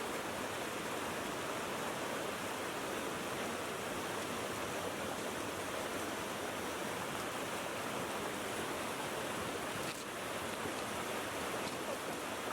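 A mountain stream running: a steady rush of water with no change, broken only by a brief dip about ten seconds in.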